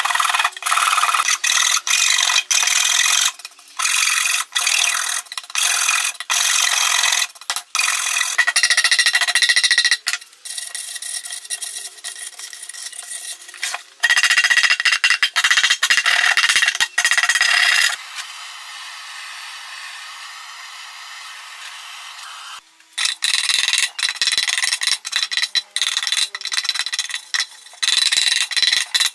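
Hand metal file rasping across the edges of rough pallet-wood boards in repeated back-and-forth strokes, smoothing the crate's edges. The strokes pause for several seconds a little past the middle, then resume.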